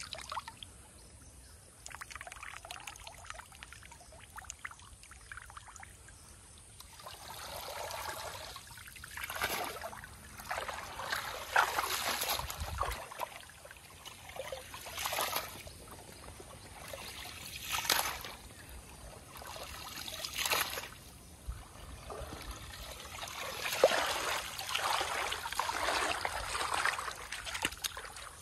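Water splashing, sloshing and trickling in repeated bursts as a cast net is dragged through shallow pond water and lifted out, water pouring and dripping from the mesh.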